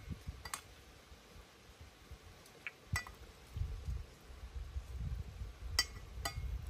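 Cooking utensils and dishes clinking together, about five sharp clinks spread out with a brief ring, over a low rumble.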